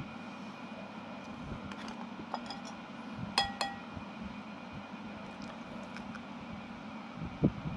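A metal spoon clinking twice against a ceramic bowl, a little past the middle, with a few faint taps around it over a steady low hum.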